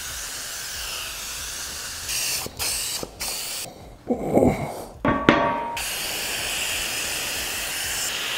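Compressed-air paint spray gun hissing as it sprays hammertone paint, cut by a few short breaks. Around four to five seconds in, the welded steel frame is moved and knocks once with a short ringing metal clank, then the steady spray hiss resumes.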